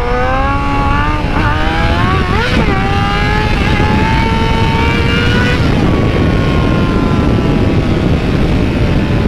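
Yamaha YZF-R6 inline-four engine pulling hard through the gears, its pitch climbing with brief dips at the upshifts over the first five or six seconds. The throttle then closes and the revs fall away slowly, under a steady rush of wind on the microphone.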